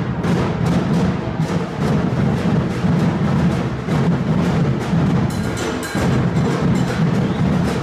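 Lively band music with a steady, strong drum beat.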